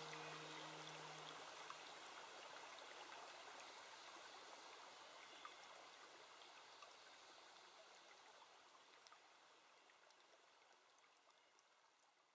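A woodland stream running, a steady watery hiss that fades slowly away toward near silence. A last held musical note rings out and dies away in the first second or so.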